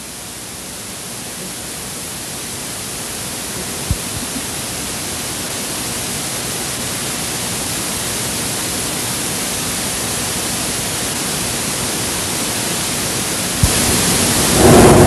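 Steady static hiss, slowly growing louder, with a brief click about four seconds in and another near the end, where the hiss steps up.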